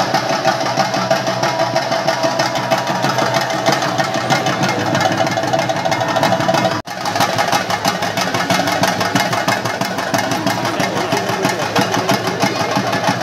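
Theyyam percussion ensemble of chenda drums played in a fast, unbroken roll, with a steady held tone above it. The sound cuts out for an instant about seven seconds in, then carries on.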